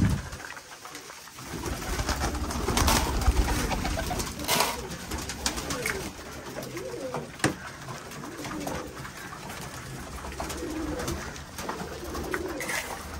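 Domestic fancy pigeons cooing steadily in a loft, low repeated coos, with a few sharp clicks and knocks from handling a steel bowl of grain at the feeders.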